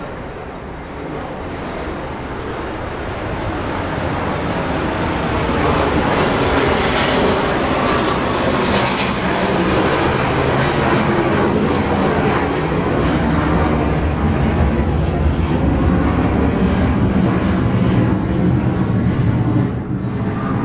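Low-flying military jet passing over. Its engine noise grows loud over the first several seconds and then holds loud.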